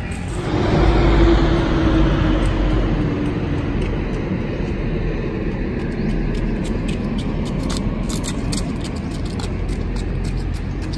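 A road vehicle passing: its engine note swells about a second in and fades over the next few seconds, over a steady low outdoor rumble.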